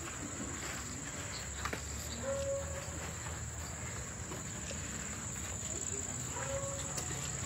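Steady high-pitched insect chorus that holds one unbroken tone.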